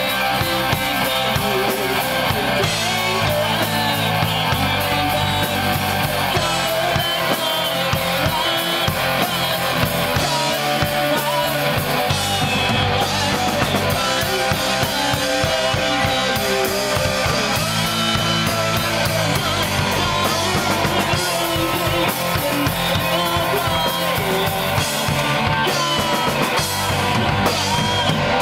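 Rock music with distorted electric guitars and a drum kit playing steadily.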